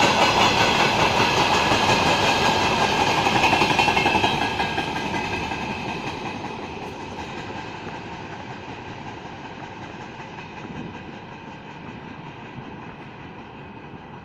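Freight train wagons rolling past, wheels clattering over the rail joints, loud for about four seconds and then fading away steadily as the end of the train goes by and draws off.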